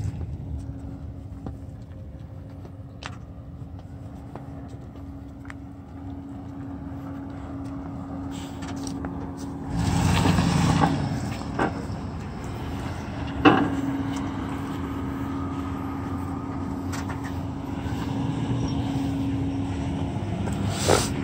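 Chevrolet Caprice 5.7-litre V8 engine running at idle with a steady hum. It gets louder for about a second around ten seconds in, with a few sharp knocks.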